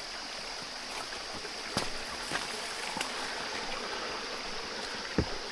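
Steady rushing of a small mountain stream, with a few light footsteps on the trail.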